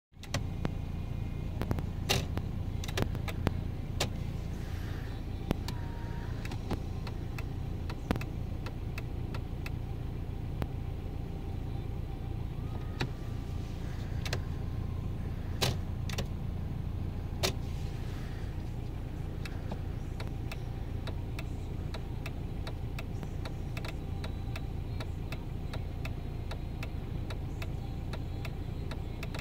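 Volkswagen Passat B5 engine idling, heard from inside the cabin as a steady low hum, with scattered sharp clicks from the indicator stalk and switches being worked while the turn signals are tested for a fault. Fainter, even ticking runs through the second half.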